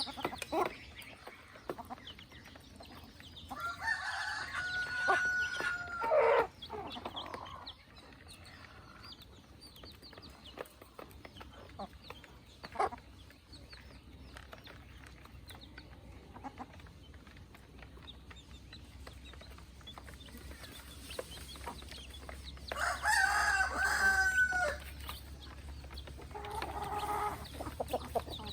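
Chickens clucking, with a rooster crowing twice: once about four seconds in and again some twenty seconds later, each crow a long held call that drops away at the end.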